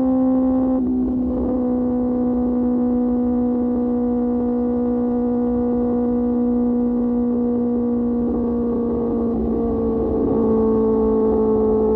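QJ Motor SRK600's inline-four engine running at a steady high rev through an SC-Project aftermarket exhaust while riding, its pitch easing down slightly about ten seconds in.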